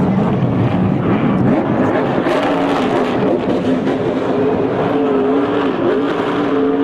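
NASCAR Sprint Cup car's V8 engine held at high revs during a burnout, its pitch wavering up and down as the rear tyres spin and smoke.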